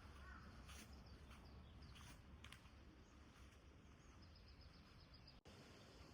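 Near silence: faint outdoor ambience with a low rumble and a few soft clicks, and a faint bird trill of rapid high notes about four seconds in.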